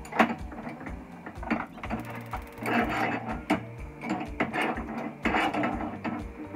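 Metal utensil clattering and scraping against a frying pan on a gas stove: irregular knocks with short scraping stretches, the busiest a few seconds in.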